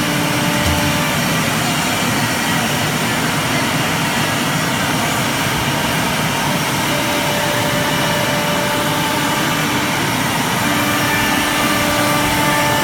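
1325 CNC wood router running: a loud, steady machine rush with faint whining tones that fade in and out.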